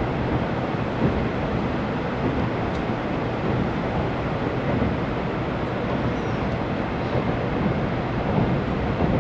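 Tokaido Shinkansen train running, a steady noise of wheels and motion heard from inside the passenger car.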